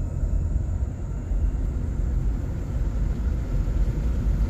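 Steady low rumble of road and wind noise inside a moving car with the windows open.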